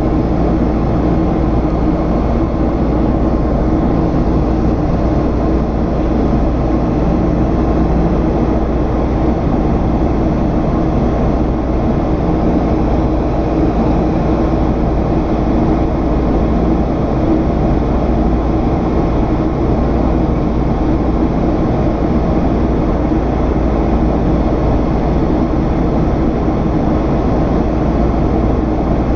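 Boeing 767's General Electric CF6 turbofan engines running steadily, heard from inside the passenger cabin: a continuous, even rush of engine and air noise with a few constant low hums.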